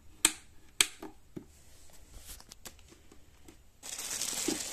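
Sharp plastic clicks, two loud ones in the first second and a few fainter ones after, as the control knob is pressed onto a new mixer grinder's base. Near the end, plastic wrapping crinkles as the wrapped jars are handled.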